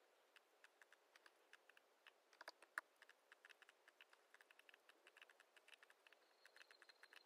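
Faint, irregular clicking of a computer keyboard and mouse, a few clicks a second, with one sharper click near the middle.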